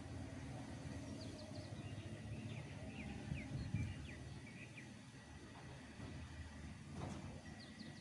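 Wind rumbling low and unevenly, with small birds chirping in short quick notes, a run of them in the first few seconds and a few more near the end.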